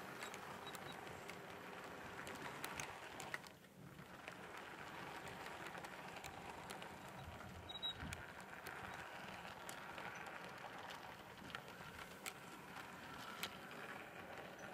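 Model train of coaches rolling past on the layout track: a faint, steady rolling noise with scattered light clicks.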